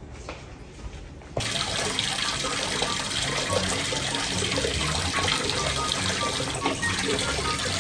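Water from a wall tap pouring steadily and splashing into a plastic basin already partly full of water. It starts abruptly about a second and a half in, after a quieter stretch of faint room sounds.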